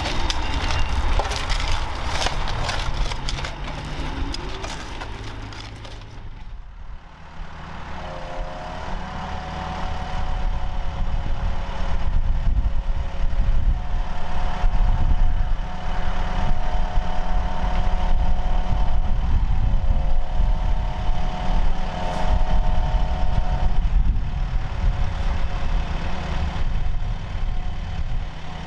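Tracked excavator's diesel engine running steadily, with a higher hydraulic whine that holds its pitch and dips briefly a few times. Before that, in the first few seconds, spades scrape and crunch through soil around a pipe.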